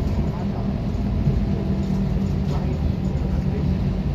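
Steady drone of a 2011 Gillig Advantage city bus's engine and road rumble heard from inside the cabin while the bus drives along.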